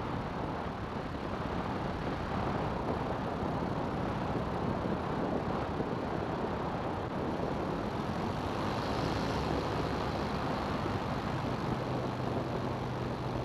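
CGS Hawk ultralight's engine and propeller running steadily, mixed with a rush of wind noise. A low, even hum stands out more clearly near the end.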